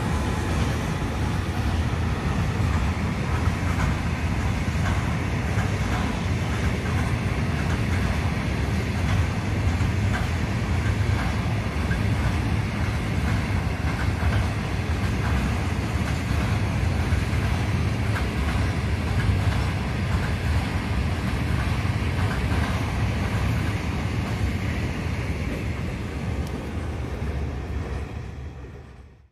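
Freight train of covered hopper wagons rolling past behind an electric locomotive: a steady heavy rumble of wheels on rail with scattered clicks. It fades out near the end.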